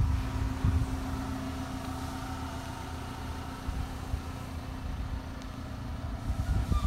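A vehicle engine idling steadily, with wind buffeting the microphone in the first second.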